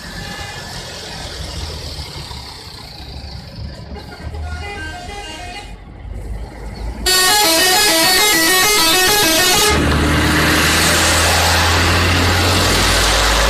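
A bus's telolet horn playing its multi-tone tune. A faint stepping melody comes first, then about seven seconds in a loud burst of rapidly alternating notes that lasts nearly three seconds and cuts off abruptly. A loud rushing noise over a low engine drone follows.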